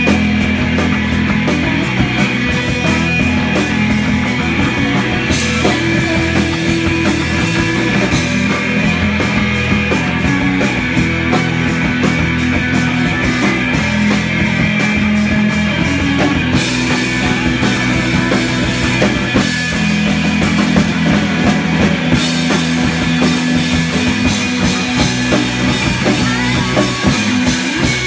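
Rock band playing live and loud, with electric bass, electric guitar and drum kit.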